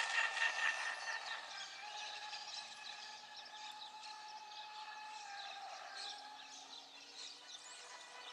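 Electric motor whine of a Tenshock F1 Formula RC boat running fast and fading as the boat heads away, its pitch dipping a little about six seconds in.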